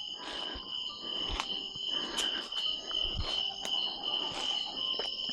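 Steady insect chorus, a continuous high-pitched chirring drone, with a few scattered faint clicks.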